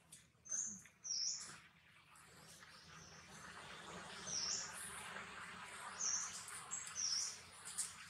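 About seven short, high-pitched animal chirps, spread across a few seconds, over a faint hiss that grows louder partway through.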